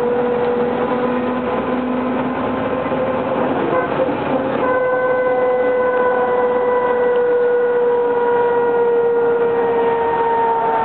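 MAN NL202 city bus driving, heard from inside the passenger cabin: a steady engine and transmission whine over road noise. About four and a half seconds in the whine grows louder, then slowly falls in pitch.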